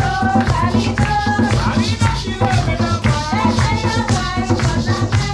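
Singing over a steady drum beat and rattling shakers: music for a Kalinago dance performance.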